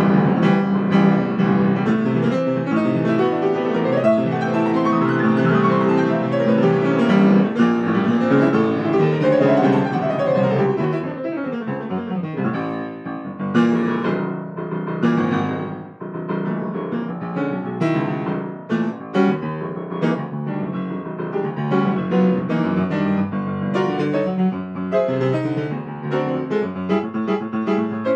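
Grand piano being improvised on: sweeping runs rising and falling across the keyboard in the first half, then quicker detached chords after a brief dip in loudness about sixteen seconds in.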